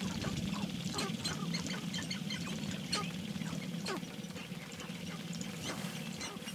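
A flock of male sharp-tailed grouse displaying: a steady low, rapidly pulsing rattle from the dancing birds, overlaid with many short clucking and cackling calls and sharp clicks, and a few quick falling calls.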